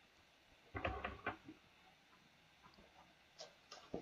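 Faint ticks and scratches of a pen writing on paper: a short run of strokes about a second in and two brief ticks near the end.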